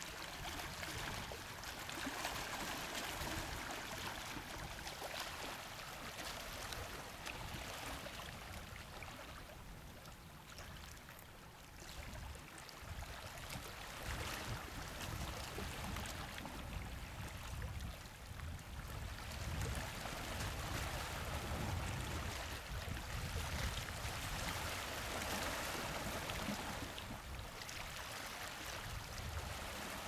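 Small sea waves lapping and washing against shoreline rocks, a steady wash of water that swells and eases every few seconds, with a low, uneven rumble underneath.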